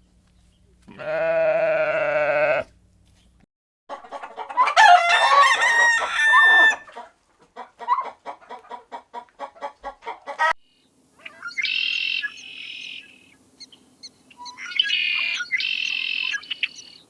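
A run of separate chicken clips: a rooster crowing and hens clucking, with a quick string of short clucks in the middle and high, pitched calls near the end. It opens with a single drawn-out call like the bleating just before.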